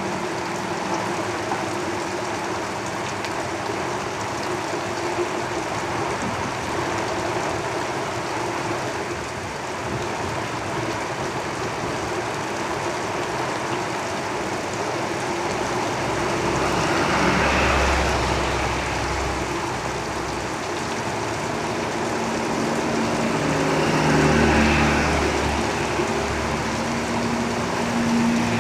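Steady rain on a tin roof, with traffic on a road outside: vehicles rumble past, two of them swelling louder a little past halfway and again near the end.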